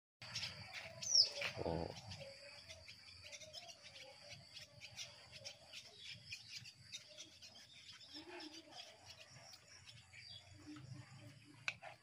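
Swallows twittering at their mud nests: many short high chirps, with a louder falling call about a second in.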